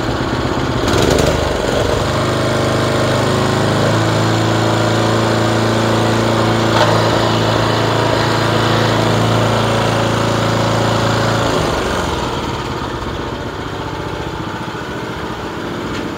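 Kubota self-binding walk-behind reaper running on its small four-stroke engine, with the machine rattling. The engine note is steady, then drops lower and a little quieter about eleven and a half seconds in.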